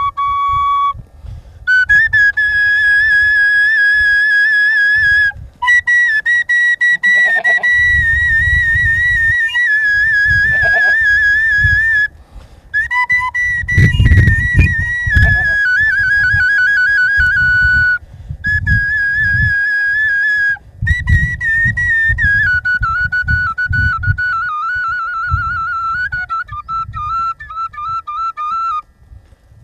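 Kaval, the wooden shepherd's flute, playing a slow folk tune: long held notes decorated with quick wavering trills, in phrases broken by short breath pauses, the melody sitting lower in the last third. A low rumbling noise runs underneath.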